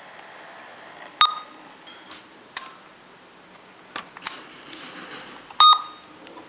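Sharp plastic-and-metal clicks as an IBM ThinkPad laptop is handled and its front lid latch is released and the lid opened. There are about half a dozen clicks, a couple with a brief metallic ring, and the loudest is near the end.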